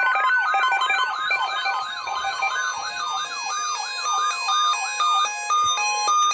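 Synthesized electronic alert sound: a warbling siren-like tone sweeping down and up about two to three times a second, layered over steady beeping notes that step in pitch. Near the end the warbling stops and only the stepped beeping notes go on.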